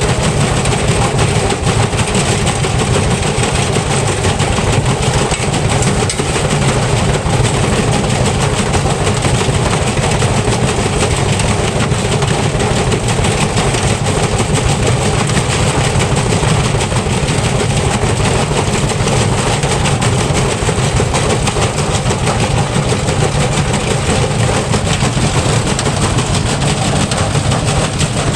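Electrolux front-loading washing machine spinning with a brick in the drum: a loud, steady mechanical din full of rapid knocking and rattling.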